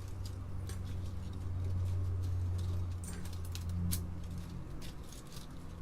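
Scattered light clicks and taps of small keyboard parts being handled, over a steady low hum.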